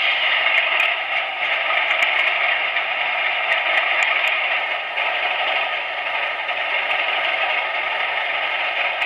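Class 37 diesel engine sound from a Howes DCC sound decoder in a Bachmann model locomotive, running steadily through the model's small loudspeaker: thin, with little bass, and a few faint clicks.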